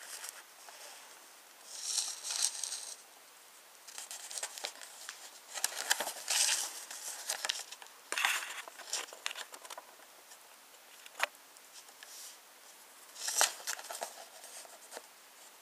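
A folded paper instruction sheet rustling and crinkling in short bursts as it is handled and unfolded, with a sharp click about eleven seconds in.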